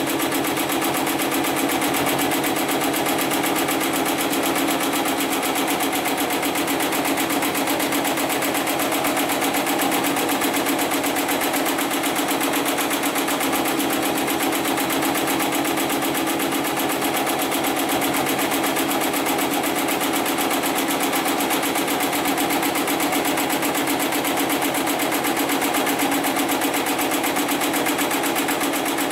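Hightex 75008 heavy-duty computer-controlled pattern sewing machine stitching through stacked synthetic webbing sling strips, running steadily at a fast, even stitch rate.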